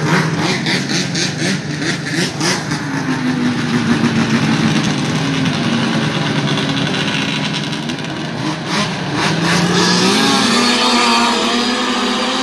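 Racing snowmobiles' two-stroke engines running and revving loudly. About nine seconds in, their pitch climbs as the sleds accelerate out across the water.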